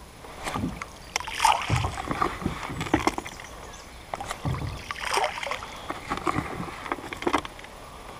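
A baiting spoon scooping a particle and crumbed-boilie mix from a bucket and flinging it out from a small boat, the bait pattering into the water, in two rounds.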